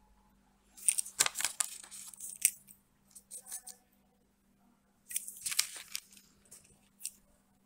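Paper rustling and crinkling close to the microphone as a hand-held note is handled, in two spells, about a second in and again around five seconds in, with a short click near the end. A faint steady hum runs underneath.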